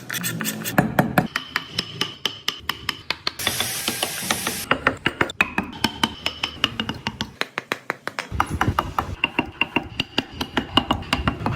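Hand tools working wood: many quick, sharp knocks in a loose rhythm, with a brief scraping noise about three and a half seconds in.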